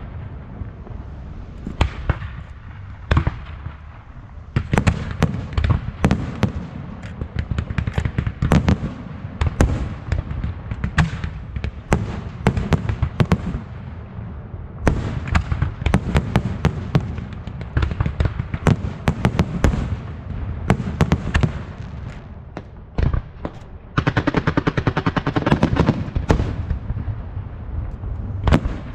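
Fireworks display: a dense, irregular series of sharp bangs and crackles. Near the end comes a quick, even rattle of rapid reports lasting a couple of seconds.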